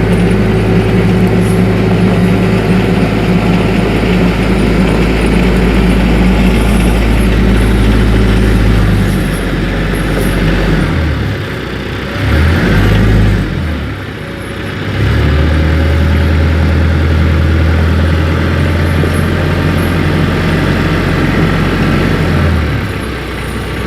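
TYM 474 compact tractor's diesel engine running steadily while the tractor is driven. Its note shifts and dips for several seconds in the middle, then settles steady again.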